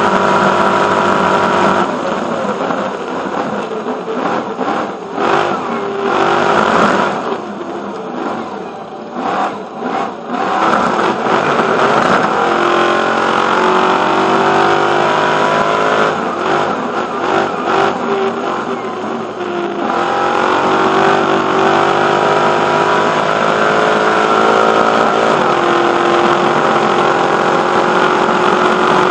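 Stadium Super Truck's V8 engine at racing speed, heard from the roof. The engine note falls and breaks up while the truck slows for a chicane, then climbs steadily in pitch as the truck accelerates out and settles into steady high revs, with a shift in pitch near the end.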